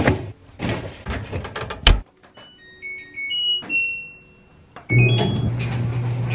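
Clothes dryer being loaded, with clattering ending in the door shutting with a bang about two seconds in. Its control panel then gives a string of short electronic beeps at different pitches as the cycle dial is turned, and about five seconds in the dryer starts running with a steady low hum.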